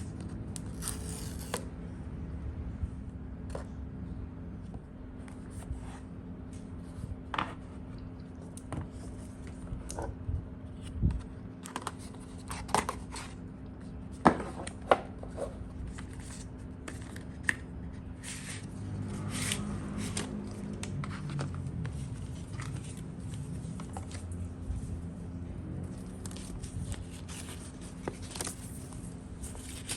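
Packaging being handled during an unboxing: scattered taps, clicks and short tearing and scraping strokes of a box, its seals and its wrapping, over a steady low hum.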